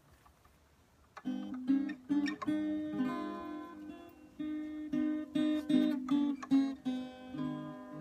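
Acoustic guitar played solo, coming in about a second in with picked notes and strums that ring on between attacks.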